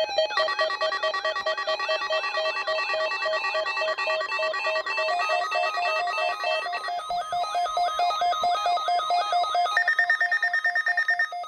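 NOAA Weather Radio warning alarm going off for the weekly test: several steady electronic tones sounding together with a fast, repeating warble over them, the pattern of tones shifting about seven seconds in.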